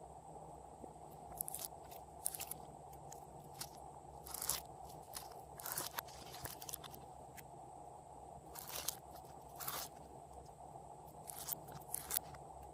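Glossy slime being worked by hand, giving irregular sticky clicks and crackles, some in quick clusters.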